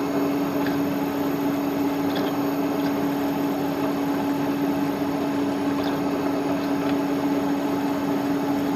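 Milling machine spindle running at about 760 RPM, a four-flute carbide end mill cutting dry into a hard broken stud: a steady hum with a few faint ticks. The material is hard and the cut is going very slowly.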